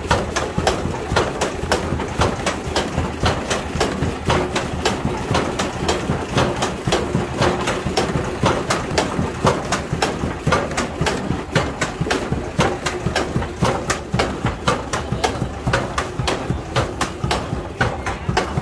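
A large wooden wheel mechanism turning on its frame with a steady, rapid clatter of knocks, about three a second.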